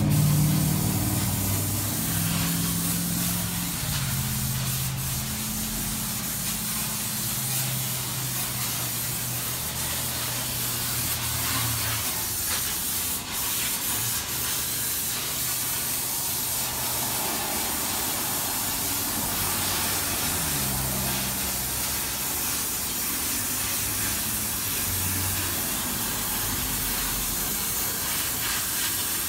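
Steady hissing workshop noise with a low hum underneath that steps up and down in pitch.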